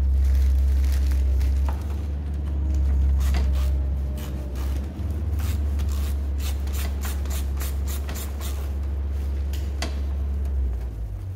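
Ratchet wrench clicking as a valve cover bolt is loosened on a scooter engine, a quick run of sharp clicks through the middle, over a steady low hum.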